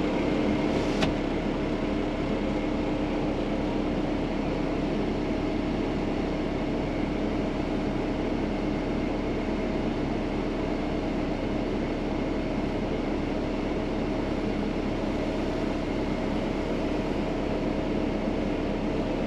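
Excavator diesel engine idling steadily, heard from inside the cab, with a single short click about a second in.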